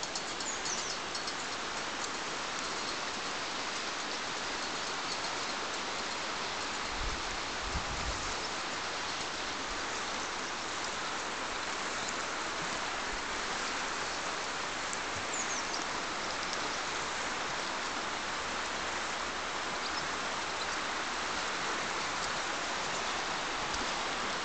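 Shallow river running over a gravel and cobble bed: a steady rushing hiss of water through the riffles.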